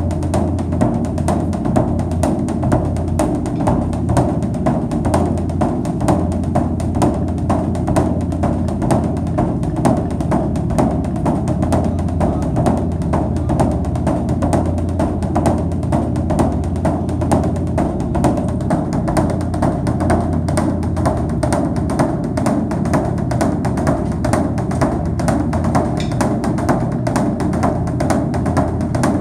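Background music with a steady drum and wood-block beat.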